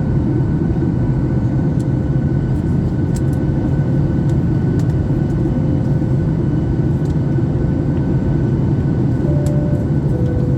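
Steady drone of a jet airliner's cabin in flight: constant low engine and airflow noise with a faint steady hum above it.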